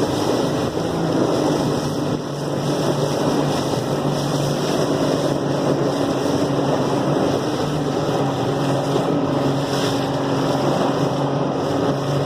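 Motorboat engine running steadily under way, a constant hum with wind buffeting the microphone.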